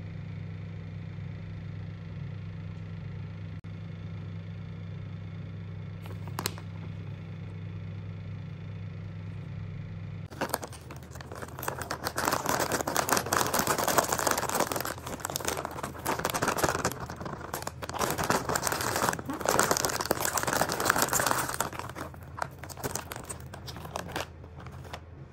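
Foil snack bag crinkling as light corn puffs pour out of it into a ceramic dish, a dense crackling that starts about ten seconds in and eases off near the end. Before it, a steady low hum with a single click about six seconds in.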